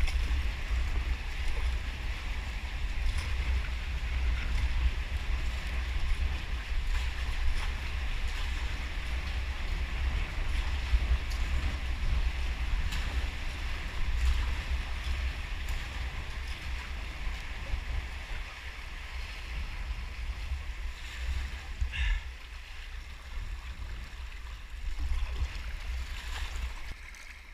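Fast-flowing tidal water rushing around a sea kayak's hull, heard from a deck-mounted camera, over a steady low rumble of wind on the microphone. The rush eases somewhat in the second half.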